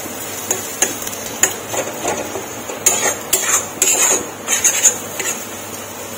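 Metal spatula scraping and knocking around a dark metal kadai, stirring night jasmine flowers and egg as they fry, in irregular strokes over a light steady sizzle.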